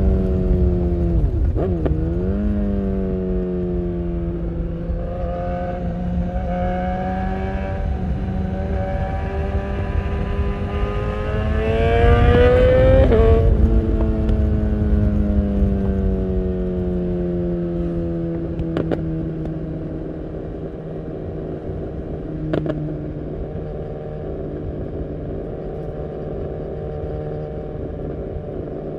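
BMW S1000R's inline-four engine through a full Akrapovic exhaust, heard from the rider's seat with low wind rush. The engine note dips and recovers about two seconds in, then climbs in a long pull that is loudest near the middle. Then the throttle is rolled off and the note falls away to a steady, lower cruise.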